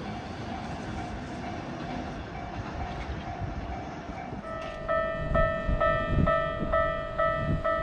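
Keikyu train running past a level crossing with a low rumble, while a crossing alarm bell rings faintly. About four and a half seconds in, a crossing bell starts loud and close, ringing its 'kan-kan' about twice a second over the train's rumble.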